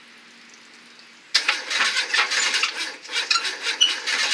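Renault Clio's 1.2-litre Energy engine being cranked in a restart attempt after it was run without oil or coolant until it failed: a loud, irregular clatter that starts suddenly about a second in.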